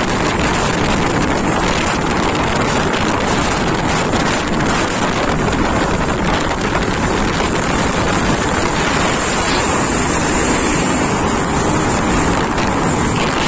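Steady rush of wind and road noise from a fast-moving vehicle, with truck engines running under it.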